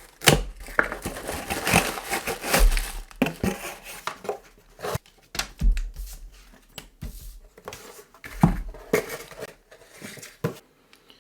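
Shipping box being opened and unpacked by hand: irregular crinkling and rustling of packing material and bags, with scattered sharp clicks and knocks as the contents are handled.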